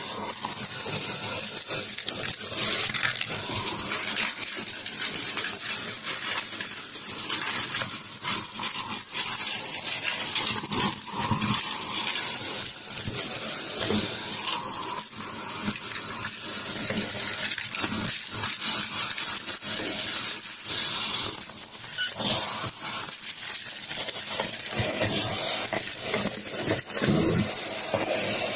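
Shark vacuum cleaner running over carpet, sucking up a pile of fluff, popcorn kernels and craft bits, with many clicks and rattles as the hard pieces go up the nozzle. The sound swells and drops as the nozzle works into the pile.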